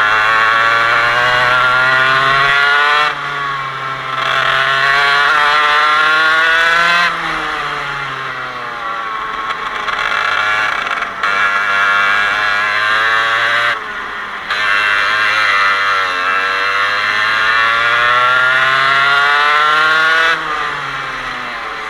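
Parilla 125cc two-stroke kart engine at racing revs. Its pitch climbs steadily under throttle and drops sharply each time the throttle is lifted, about five times.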